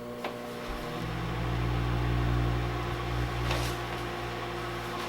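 Microwave oven running: a steady electrical hum that grows louder about a second in and then holds steady.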